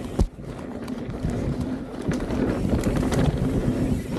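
Mountain bike riding fast down a dirt trail, heard from a camera mounted on the rider: tyres rolling over dirt with the bike rattling over bumps and wind on the microphone. There is a sharp knock about a quarter second in, and the noise grows louder as the bike picks up speed.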